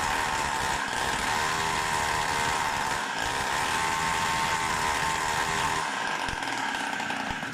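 Samurai 40cc two-stroke mini-bike engine running on the stand with a sputtering note that doesn't climb in revs, then cutting off abruptly at the end. It runs more evenly but won't rev out, which the owner puts down to ignition timing probably set too late.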